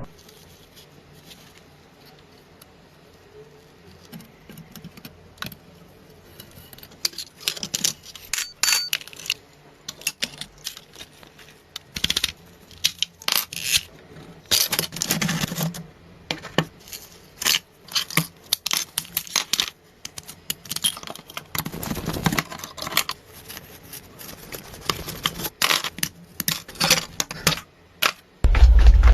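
Irregular light clicks, clinks and scrapes of hand work on small hard parts, starting after several seconds of quiet and growing busier. A heavier low thump comes near the end.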